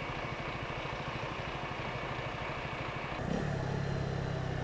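Honda CB125R's single-cylinder engine running low and uneven, then about three seconds in it picks up to a steady, higher-pitched run as the motorcycle moves off.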